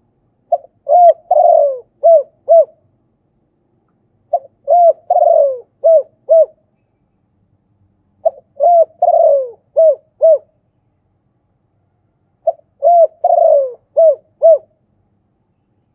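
Spotted dove cooing: four phrases, about one every four seconds. Each is a run of five short low coos, the middle one longer and falling in pitch.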